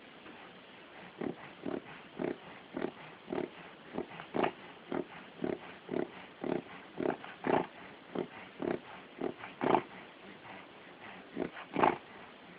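A dog having a reverse-sneezing fit: rapid, forceful inhalations pulled in through the nose, about two a second, starting about a second in and stopping near the end.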